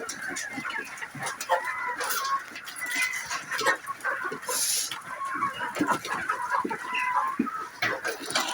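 Flock of poultry calling: many short, overlapping calls throughout, with a brief high hiss about halfway through.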